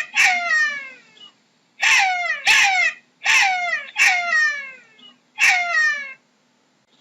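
Jackal calling: a run of about six high-pitched yelping cries, each one sliding down in pitch.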